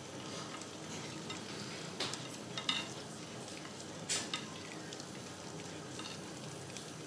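Spatula spreading chocolate glaze over a cake and scraping against the plate, with a few sharp clicks, the loudest about four seconds in, over a steady hiss.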